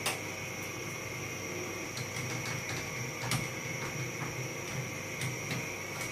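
Scattered clicks and taps of a screwdriver and plastic casing parts as a split air conditioner's indoor unit is taken apart, the sharpest at the start and about three and five seconds in, over a steady background hum.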